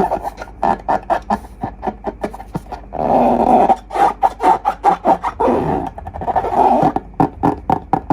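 Slime being squeezed and kneaded by hand: wet, sticky squelches with rapid crackling pops, coming in longer squishy stretches.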